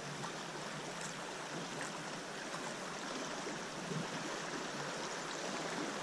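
Flowing river water rushing steadily.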